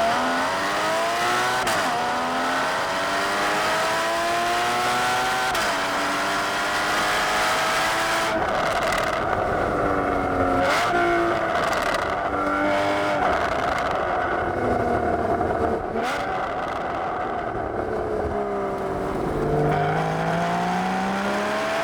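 Porsche Boxster GTS 981's 3.4-litre flat-six pulling hard through the gears: engine and exhaust rising in pitch with an upshift about two seconds in and another around six seconds. Through the middle the revs fall away as the car slows, and near the end the engine pulls and climbs again.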